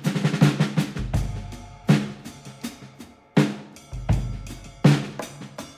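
Background music: a drum-led track with sharp snare and bass drum hits over a low bass line.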